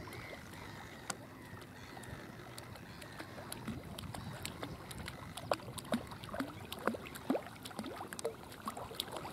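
German shorthaired pointer swimming and wading through water with a shot duck in its mouth: faint sloshing and small splashes, growing more frequent from about four seconds in.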